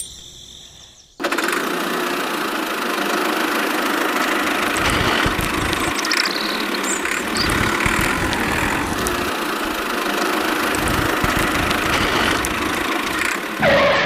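A tractor engine starts abruptly about a second in and then runs steadily, with uneven low thumps under the engine noise.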